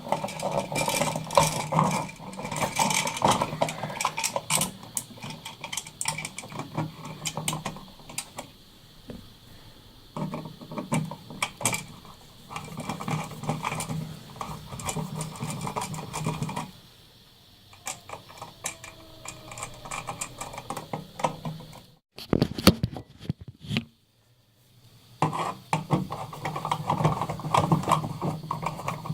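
Hand-work clicks, taps and rattles as wires are folded back and an electrical outlet is fitted back into its wall box, with pauses in between.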